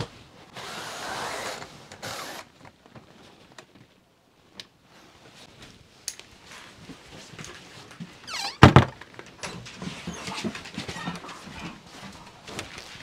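A wooden door inside a caravan knocks shut with a short squeak just before the knock, about two-thirds of the way through. It is followed by scattered light knocks and clatter. A brief rustle comes about a second in.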